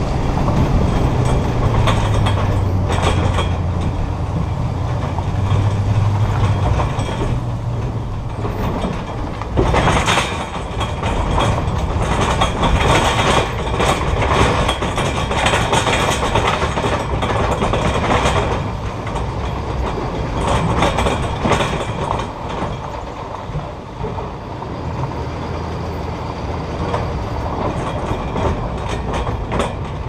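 Equipment trailer loaded with a skid steer being towed, with continuous road rumble and a steady clatter of rattling metal. Partway through it rolls from pavement onto gravel.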